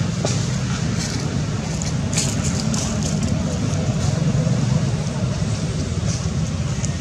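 Steady low rumble of outdoor background noise, with a few faint clicks and rustles about two to three seconds in.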